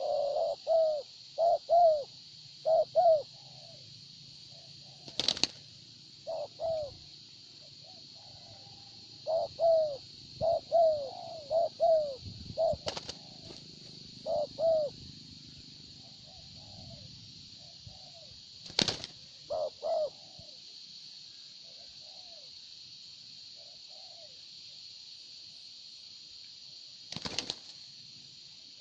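Spotted doves cooing in quick runs of short, curved coo notes, with a few sharp wing claps in between. A steady high hiss runs underneath.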